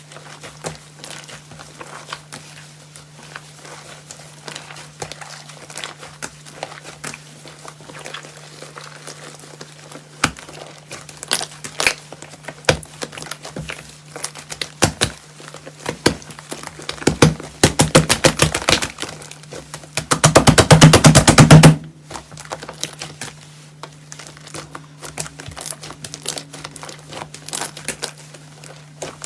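Slime being squished and pressed by hand, crackling and popping with many small clicks. About two-thirds of the way in comes a run of rapid clicks lasting about two seconds, the loudest part. A steady low hum runs underneath.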